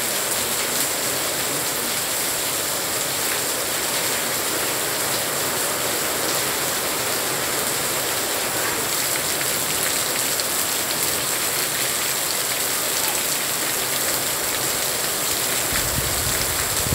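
Steady downpour of rain on the street and garden, an even hiss. A low rumble comes in near the end.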